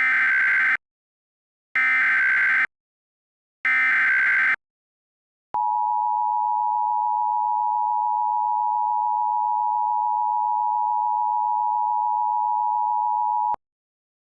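Emergency Alert System SAME header: three short, harsh digital data bursts about a second apart. Then the EAS two-tone attention signal, 853 and 960 Hz, holds steady for about eight seconds and cuts off suddenly, signalling that an emergency alert message is about to be read.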